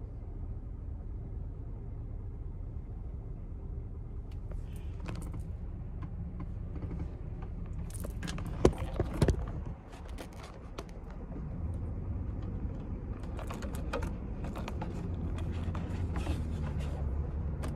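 Clicks, knocks and rattles of objects being handled and set in place, loudest about eight to nine seconds in, over a steady low rumble.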